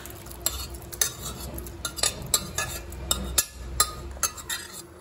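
Boiled yellow peas and their cooking water tipped from a steel pot into a kadhai, a metal spoon scraping them out and knocking against the steel cookware in a string of sharp clinks, about a dozen in all.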